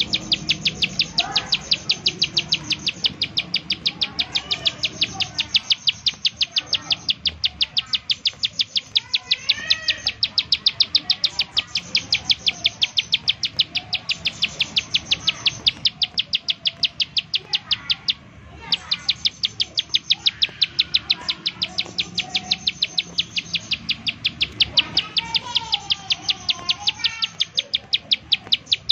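Plain prinia (ciblek sawah) giving its rapid 'nembak-nembak' call: a long, even string of sharp, high ticking notes at about four a second, broken once by a short pause about two-thirds through. Softer, lower warbled notes come and go underneath.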